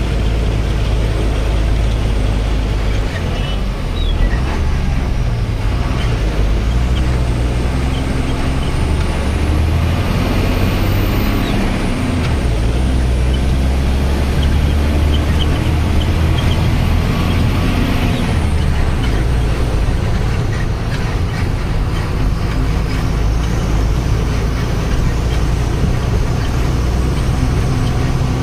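Truck engine running under way, heard from inside the cab, with road noise. Its pitch rises and falls a few times around the middle, then settles.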